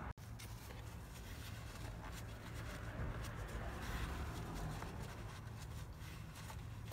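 Faint scratchy rustling of a paper towel rubbed around inside a plastic air filter box, wiping out spilled motor oil, over a low steady background rumble.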